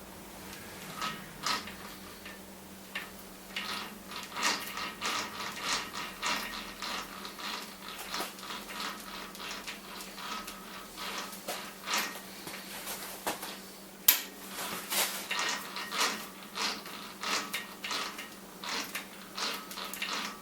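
Irregular metal clinks, taps and scraping as the gearbox is fitted and bolted onto a Rivett 608 lathe, with one sharper click about 14 seconds in, over a faint steady hum.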